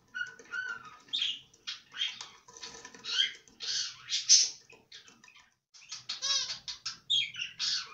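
Small pet parrot chattering: a quick run of short chirps and warbled calls, with a brief pause about two-thirds of the way through.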